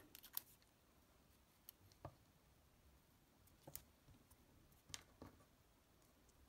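Near silence with about half a dozen faint taps and rustles of hands pressing tape onto a paper card.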